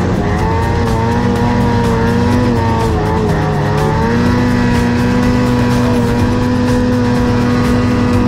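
Two-stroke mountain snowmobile engine running at high revs under load, climbing through deep powder snow. The pitch wavers, sags briefly about three seconds in, then holds steady.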